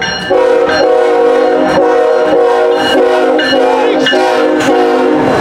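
Air horn of CSX GE ET44AH locomotive 3210 blowing a loud, long steady chord as the train approaches, with a brief break about a quarter second in.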